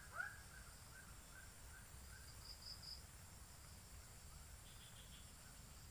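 Faint, steady high-pitched drone of insects. In the first couple of seconds a repeated call, each note rising then falling in pitch, about two or three a second, fades away.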